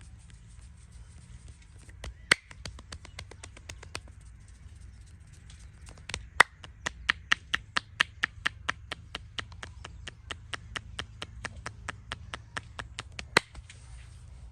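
Hands striking in a massage: a quick, even series of sharp slaps or taps, about four a second, starting about two seconds in and stopping just before the end, with a few louder smacks among them.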